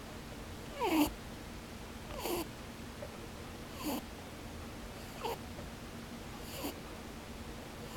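Pet rabbit snoring in its sleep: a short "poo-poo" snore that falls in pitch, with a breathy hiss, repeating about every second and a half, six times.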